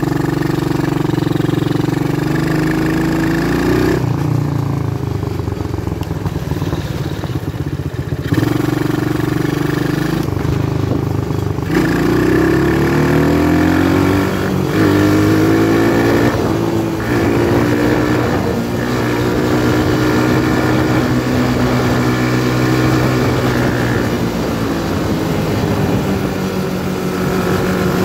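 Small Barton quad's engine running under way, its pitch repeatedly climbing and falling as the throttle is opened and eased off.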